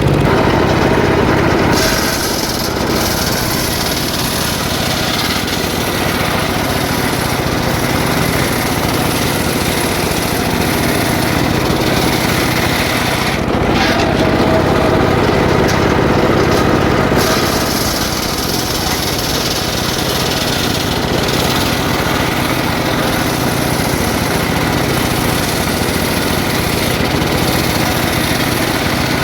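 Two-stroke petrol saw running at high revs while cutting jackfruit wood, a steady engine note that eases and picks up a few times as the load changes.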